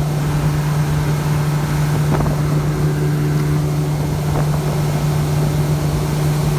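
A boat's motor running steadily at an even pitch, with a constant low hum.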